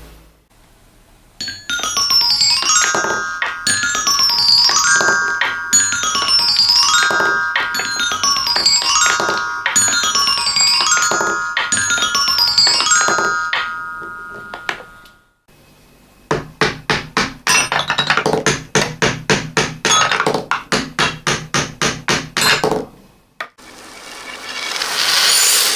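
Marbles rolling down a marble run's metal xylophone keys, each pass sounding a quick run of bell-like notes, repeated about eight times, with the audio played in reverse. Then comes a steady series of sharp clacks, about three a second, and near the end a rushing sound that swells up.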